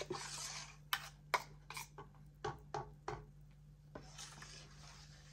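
Metal spoon stirring rice-flour batter in a stainless steel bowl. A brief swish of stirring comes first, then a string of light clinks as the spoon knocks and scrapes against the bowl, about seven in all, and another soft swish near the end.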